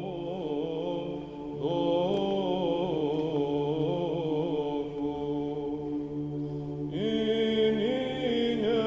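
Orthodox church chant: a melismatic sung line winding over a steady held drone, growing fuller about seven seconds in.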